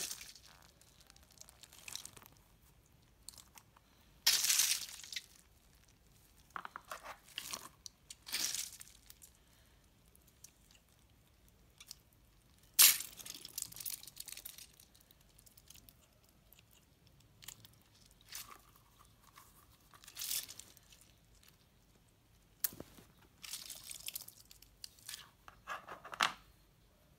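Slime and water beads being handled: a mesh stress ball full of gel water beads is squeezed and cut open in clear slime, and the beads spill into the slime. The sound comes in irregular bursts, with a sharp click about halfway through.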